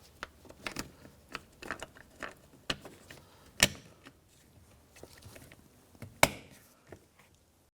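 A run of light plastic clicks and taps as a small trim cap is pressed into a car's interior door panel, with two sharper clicks, one about three and a half seconds in and one about six seconds in.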